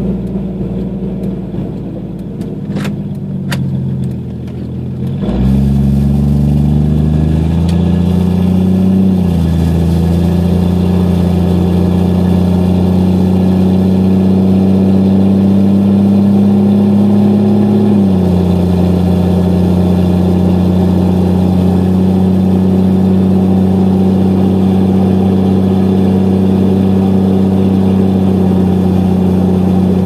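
1992 Jeep Cherokee XJ's 4.0-litre inline six with a 2.5-inch straight pipe from the catalytic converter back, heard from inside the cab with the front windows down: idling, then pulling away about five seconds in with rising pitch. The pitch drops as it shifts up around nine seconds in and drops a little again around eighteen seconds, settling into a steady exhaust drone.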